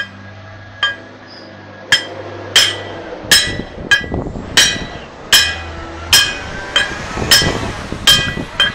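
Steel hammer striking a flat steel bar laid over a bushing, driving the bushing into an axle knuckle's bore: about a dozen ringing metallic blows, spaced about a second apart at first and coming faster later.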